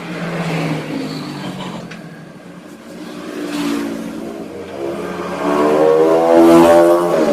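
A vehicle engine running and revving, its pitch rising and loudest about six and a half seconds in.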